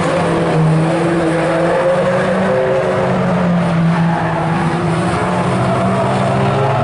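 Several small hatchback race cars running together round a tarmac oval, their engines making overlapping tones that shift slowly up and down in pitch.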